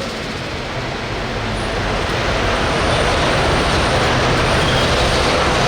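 Hot farm pulling tractor's diesel engine running hard under load, growing louder over the first few seconds.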